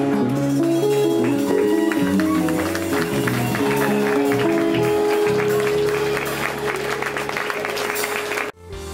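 Live band playing: electric guitar over drums and bass guitar. The music cuts off abruptly near the end.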